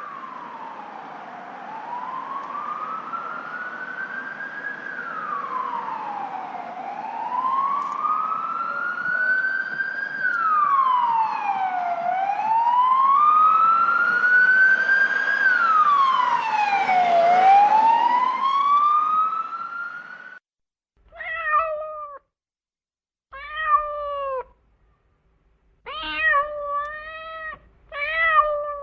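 An emergency-vehicle siren wails slowly up and down, each rise and fall taking about five seconds, then cuts off abruptly. It is followed by a cat meowing, about five short meows with silent gaps between them.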